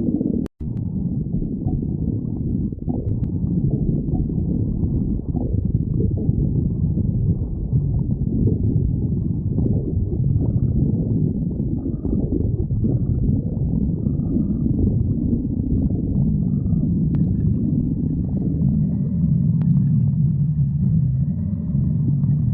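A person's stomach growling and gurgling almost without a break, low and rumbling. The sound cuts out for an instant about half a second in.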